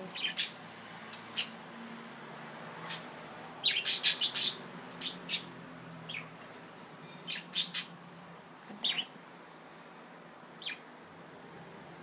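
Pet budgerigars giving short, sharp chirps, scattered singly with a quick run of several about four seconds in, excited and in a flirting, mating mood.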